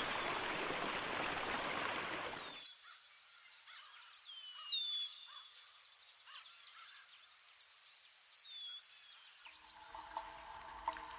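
Nature ambience: a rushing noise that cuts off abruptly about two and a half seconds in, under a cricket-like insect chirping in a steady high pulse, about three to four chirps a second, and birds giving short descending whistled calls. A faint low hum with light clicks comes in near the end.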